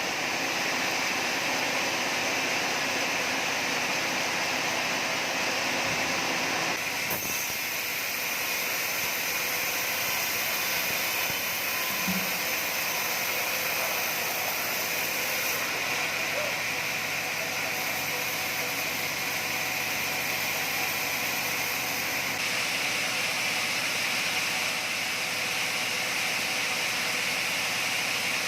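Sawmill machinery running steadily, a constant hissing mechanical noise whose tone shifts slightly about seven seconds in.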